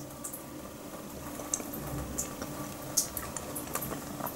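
Metal spoon scooping through thick, set homemade yogurt in a ceramic mug: soft wet squelching with scattered small clicks.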